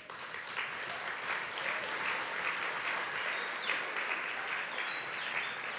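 Audience applauding, many hands clapping at once; it breaks out suddenly and holds steady.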